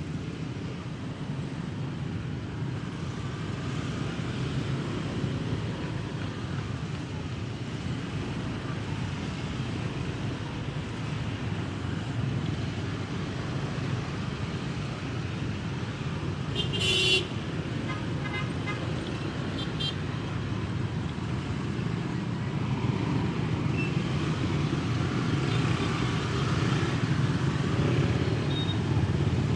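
Steady engine and road noise of slow motorbike and scooter traffic, heard from a moving motorcycle. A vehicle horn toots briefly about 17 seconds in, and the traffic grows louder near the end.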